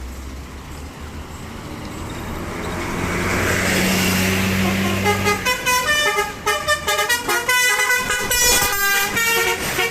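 A tour bus draws near, its engine and tyre noise getting louder. From about five seconds in, its telolet horn, a multi-note musical horn, plays a rapid tune of short notes stepping up and down in pitch.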